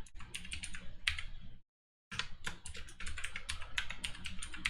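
Computer keyboard typing: a password being keyed in, quick keystrokes that break off for about half a second and then carry on.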